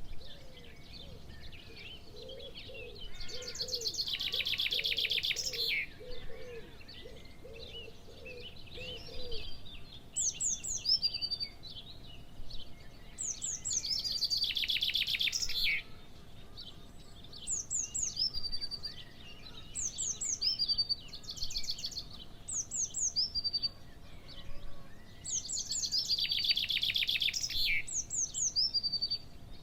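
Birds singing, several at once: three loud, fast rattling trills about ten seconds apart, many short high falling notes repeated again and again from about a third of the way in, and soft low repeated calls in the first part. A faint steady hum runs underneath.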